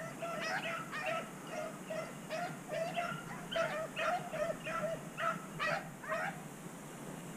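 Rabbit hounds baying on a rabbit's trail in short, repeated calls, a few every second, that stop about six seconds in. The hounds are running a rabbit they have just jumped.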